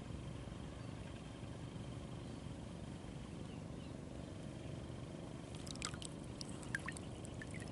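Quiet, steady outdoor ambience of open reservoir water lapping gently, with a few small water plinks and light ticks near the end.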